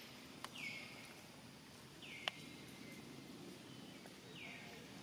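Three faint, high animal calls, each sliding down in pitch and levelling off, with two sharp clicks, the louder one about two seconds in, over a faint steady outdoor background.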